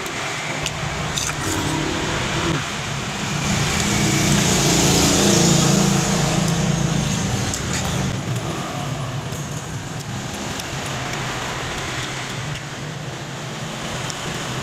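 A motor vehicle passing by, its engine and road noise growing louder to a peak about five seconds in, then slowly fading.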